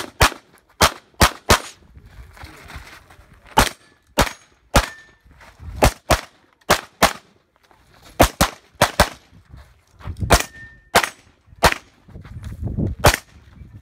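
Open-division race pistol firing a USPSA stage: about twenty sharp shots, mostly fired in quick pairs, with brief pauses between strings as the shooter moves between positions.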